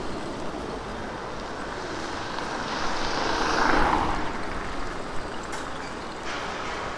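A steady rush of wind and road noise, with a vehicle passing close by that swells to a peak about three to four seconds in and fades away.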